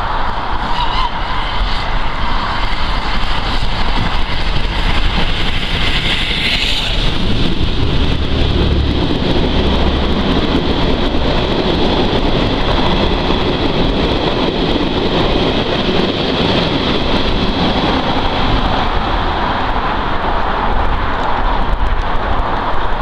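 Steam locomotive No. 461 working hard as it comes up the line and passes beneath, then its train of carriages rumbling past on the rails. The noise is loud and continuous, with a heavier low rumble from about seven seconds in as the locomotive goes under.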